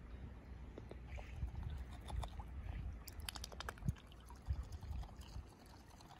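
Shallow lake water lapping and splashing at the edge of a rock, with a cluster of sharp little splashes and drips a little past the middle as a young mute swan dips its bill into the water close by.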